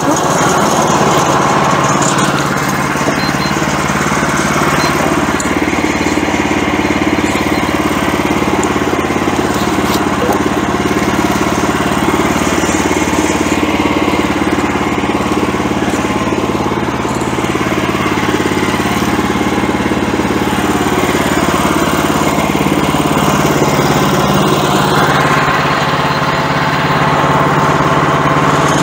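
The gasoline engine of a Woodland Mills HM126 portable bandsaw mill running steadily.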